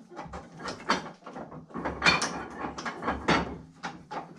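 Irregular knocks, clacks and scrapes of plastic pipe pieces and fittings being handled and set down on a wooden workbench, loudest about two and three seconds in.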